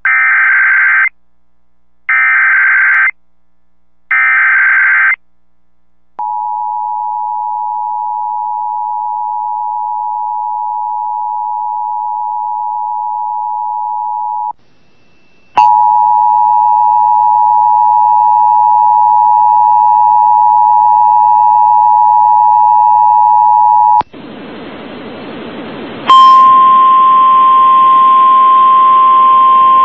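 Emergency Alert System tones. First come three one-second bursts of the SAME header data, each a harsh warble, then the two-tone attention signal held for about eight seconds. After a short gap the two-tone signal sounds again for about eight seconds with a low hum under it, then a rush of hiss and a single steady alert tone over static.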